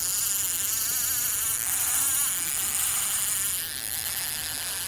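Fishing reel's drag buzzing steadily as a hooked seal pulls line off against it.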